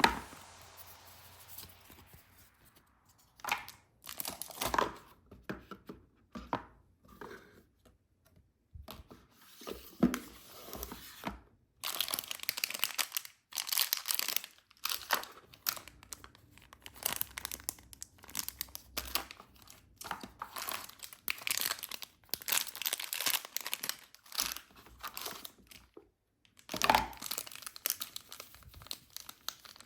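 Packaging being torn open and crinkled by hand, in irregular bouts of tearing and rustling with short pauses between.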